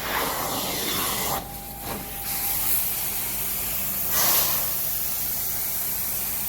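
Carpet-cleaning machine running: a loud, steady hiss of rushing air with a low hum underneath. The hiss dips briefly about a second and a half in and swells about four seconds in.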